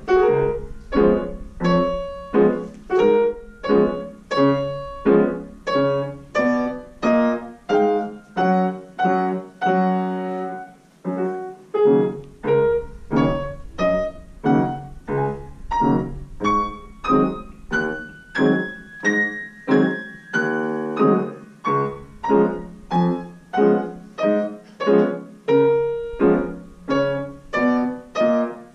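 Petrof grand piano played by two children at one keyboard: a simple piece in steady, evenly spaced notes and chords, about two a second.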